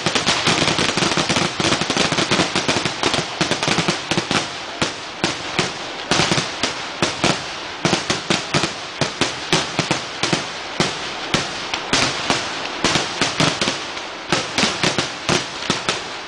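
Kerala temple-festival vedikkettu: a barrage of firecrackers going off in rapid succession. A dense continuous crackle for the first few seconds thins into rapid separate bangs, several a second.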